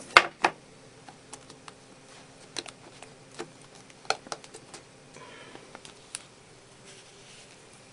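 Sharp clicks and taps of an iPod touch retail box being handled and opened, the two loudest right at the start, with a short rustle about five seconds in.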